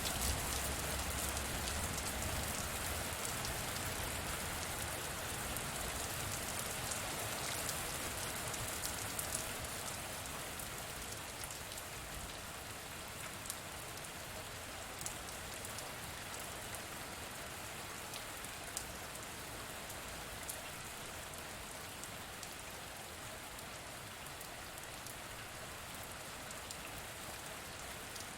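Steady rain falling on a surface, with many single drops ticking sharply through the wash. A low rumble in the first few seconds dies away, and the rain eases a little over the first half before holding steady.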